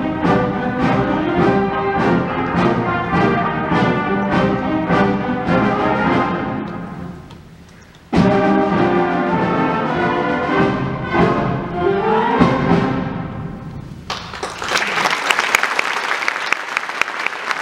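Middle school symphonic band playing the close of a piece, brass and percussion on a steady beat, fading almost away about seven seconds in, then a sudden loud full-band entry. The music stops about fourteen seconds in and the audience breaks into applause.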